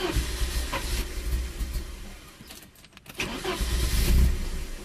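Car engine being cranked over by its starter in two attempts, the second starting about three seconds in, without catching: a no-start after minutes of trying, on a car fitted with a brand new fuel pressure regulator.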